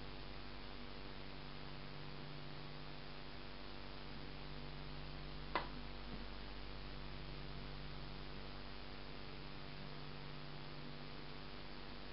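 Steady electrical mains hum with hiss in the recording, and a single sharp click about halfway through, followed by a much fainter one.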